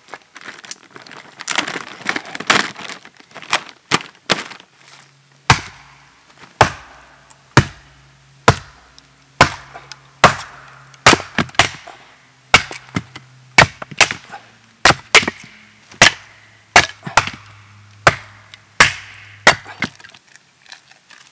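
Axe splitting firewood on a wooden chopping stump: sharp cracks of the blade biting and the wood splitting, about one strike a second through most of the stretch, after a denser run of cracks at the start.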